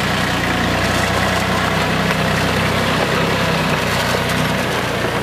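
Tractor engine running steadily and loudly while it skids a log gripped in rear-mounted forestry tongs.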